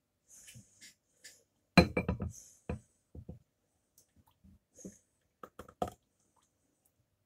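Saucepan and utensil knocking and scraping against a bowl as soup is poured and scraped out of the pan: a quick cluster of clanks about two seconds in, then a few lighter knocks and sharp clicks. Nasal breathing can be heard between them.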